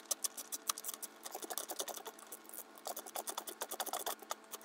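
Faint, irregular small metallic clicks and scratches as a hand fits a crimped ground eyelet onto its stud and threads and tightens the 10 mm ground nut.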